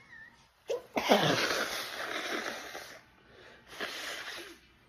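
A woman sneezes hard about a second in, one loud burst whose voiced tail slides down in pitch and fades over about two seconds, as part of a sneezing fit. A shorter, breathy burst follows near the end.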